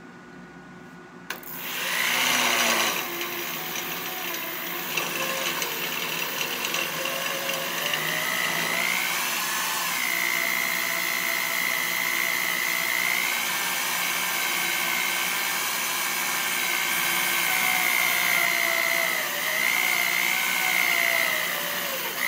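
Corded DeWalt electric drill boring a hole in metal: it starts about a second in and runs steadily for about twenty seconds. A high steady squeal from the bit cutting joins partway through, and the drill winds down near the end.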